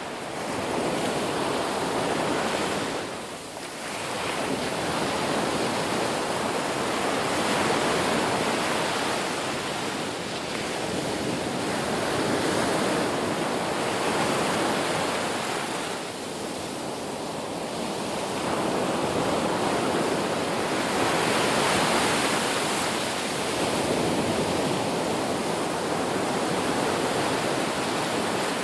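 Ocean waves breaking on a shore: a continuous rush of surf that swells and ebbs every few seconds, with a brief lull about three seconds in.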